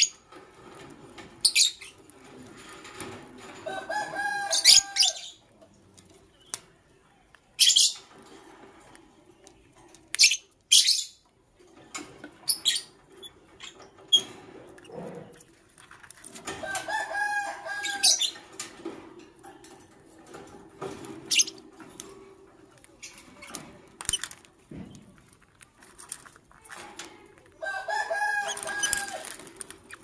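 Lovebirds calling: scattered short, shrill chirps, and three times a longer, louder warbling call, about twelve seconds apart.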